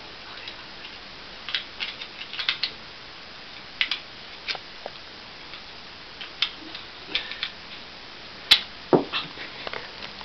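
Scattered small clicks and taps of a cell phone being handled as its battery and back cover are fitted, irregular, with one sharper click late on.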